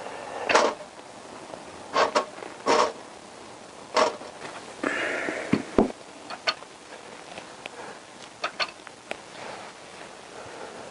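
Knocks and clunks of a Honda CBR1000F motorcycle cylinder block being handled and worked down over the pistons, several sharp hits in the first four seconds, a brief scraping sound about five seconds in, then lighter taps.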